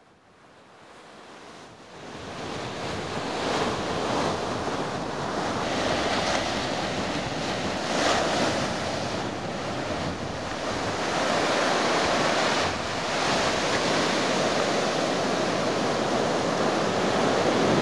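Ocean surf: a steady wash of breaking waves that fades in over the first couple of seconds, swelling and easing irregularly.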